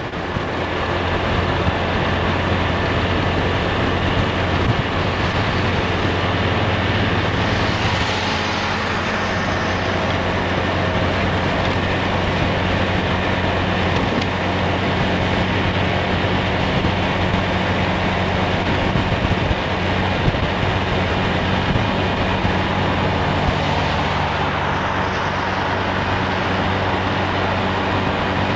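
Steady riding noise from a Honda Scoopy i scooter on the move: wind rushing over the camera's microphone, with the scooter's small single-cylinder engine humming evenly underneath. Brief swells of higher hiss come twice, about eight seconds in and near the end.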